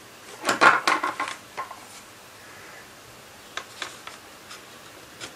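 A wooden pen tray holding fountain pens is set down and shifted on a wooden desk. A quick cluster of clacks and light rattles comes about half a second to a second and a half in, followed by a few lighter clicks later on.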